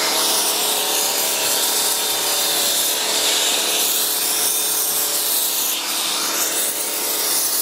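Pressure washer running through a wheeled four-jet undercarriage sprayer rolled under a car: a steady hiss of water jets spraying the underbody over the pressure washer's steady hum, washing road salt and grime off.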